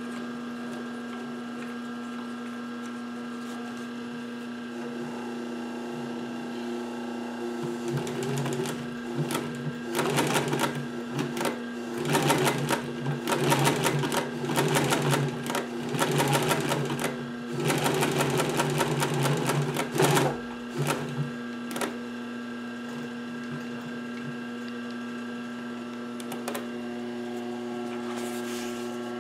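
Pfaff 1245 industrial walking-foot sewing machine stitching in several short runs, each a rapid rattle of clicks, from about 8 s to 21 s, over a steady hum. The ugly sound comes from extra pressure added to the upper-thread tension assembly: the machine is out of time and the upper thread is too forced to form the lock stitch.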